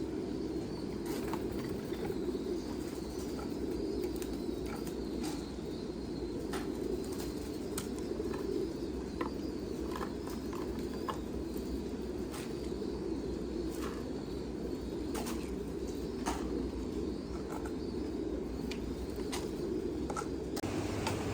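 A flock of pigeons cooing continuously, with scattered sharp clicks and flutters throughout.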